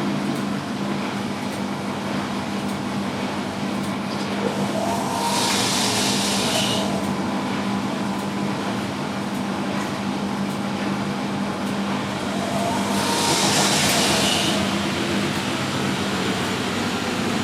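Three washing machines spinning at once, a Miele, a Euronova and a Sparmeister, giving a steady mechanical drone. Two louder bursts of hissing rise and fall about five and thirteen seconds in.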